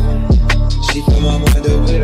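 Background music with a hip hop-style beat: deep bass notes that slide down in pitch, and a sharp snare-like hit about every second and a half.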